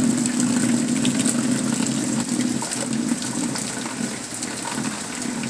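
Heavy rain falling, a steady hiss dotted with many small drop ticks over a constant low rush of running water.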